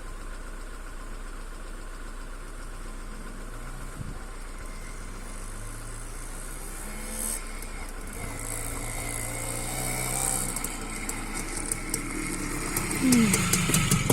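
Minsk motorcycle engine running, faint at first and growing louder as the bike comes closer, its pitch dropping near the end.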